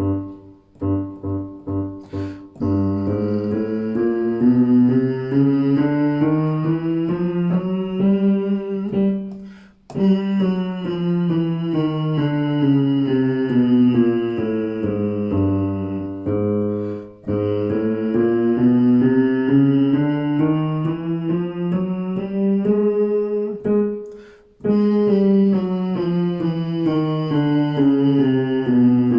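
Piano playing a few short chords as a cue, then a voice singing a warm-up scale that steps up and back down over piano accompaniment, four times, with a quick breath between runs.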